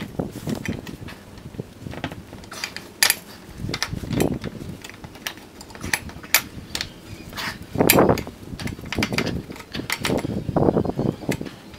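Motorcycle rear-wheel parts being handled and fitted by hand: irregular metal clinks and knocks, with a few heavier clunks.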